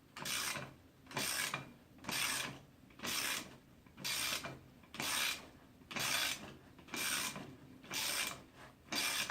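Ratchet wrench being swung back and forth to wind down a coil-spring compressor, clamping the rear strut's spring: about ten even ratcheting strokes, roughly one a second.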